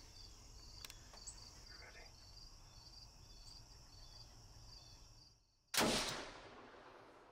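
Insects chirping in a steady rhythm, then, about two-thirds of the way in, a single loud gunshot fired at a feeding doe, its report dying away over about a second and a half.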